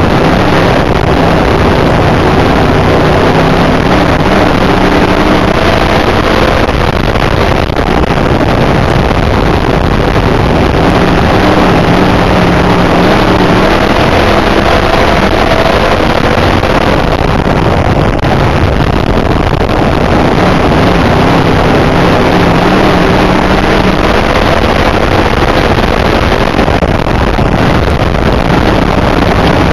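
IMCA dirt modified's V8 engine running hard, heard loud from inside the car's cockpit, its pitch rising and falling again and again as the driver gets on and off the throttle. Wind buffets the microphone throughout.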